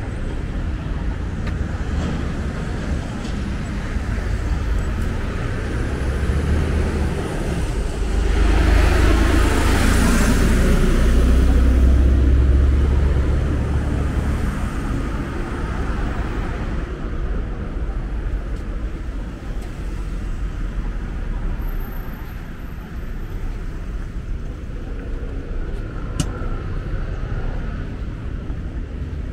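Road traffic on a city avenue: a steady low rumble of cars passing, with one vehicle going by close and loud about a third of the way through, swelling and fading over several seconds.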